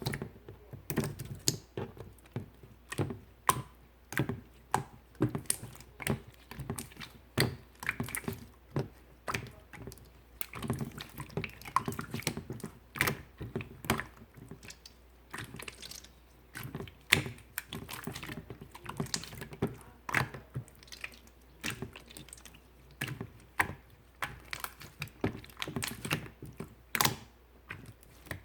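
Clear slime being squeezed and kneaded by hand: an irregular run of sharp, wet clicks and pops, about two a second, starting abruptly.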